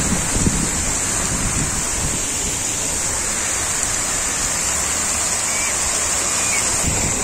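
Dozens of fountain jets spraying in a dome and falling back into the pool: a steady rushing, hissing splash of water.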